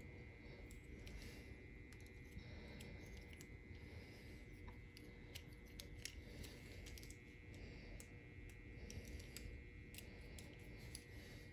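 Faint, scattered light clicks of small plastic model-train parts being handled: an N scale car's underframe and trucks. Beneath them is near-silent room tone with a faint steady high whine.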